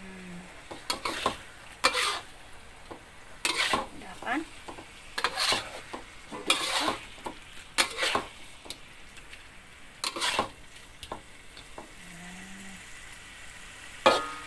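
Metal spatula scraping and stirring fried tofu and boiled eggs in spice paste around a steel wok, in irregular strokes a second or two apart, over a faint sizzle from the pan. The stirring pauses for a few seconds near the end before one more scrape.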